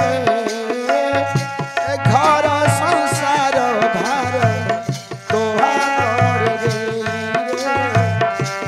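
Folk band music: a barrel drum beats a steady rhythm with hand cymbals, under a sustained melody line that wavers in pitch. It drops briefly quieter about halfway through.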